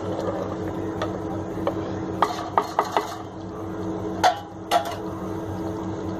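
Kitchen utensils clinking and knocking against cookware, about seven sharp clinks, several in quick succession near the middle and two more a little later, over a steady low hum.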